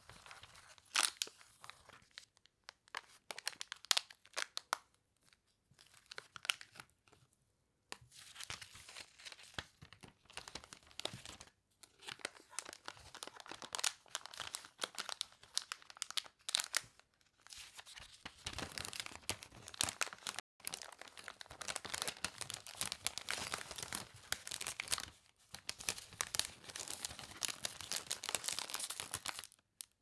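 Clear cellophane crinkling and crackling as it is folded and gathered by hand around a small candy packet, in irregular handling bursts with short pauses, turning into denser, more continuous crinkling over the last third.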